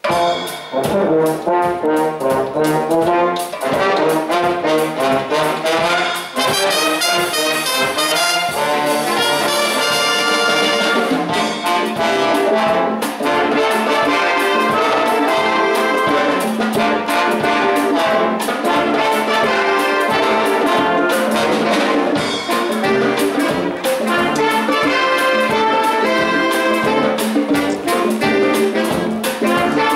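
Wind band of brass and woodwinds with drum kit playing a Cuban-style number with a steady beat, starting suddenly at full volume.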